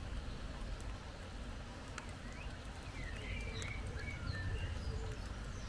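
Birds chirping in short, scattered calls, busiest in the second half, during rain, with scattered faint ticks of raindrops over a steady low background rumble.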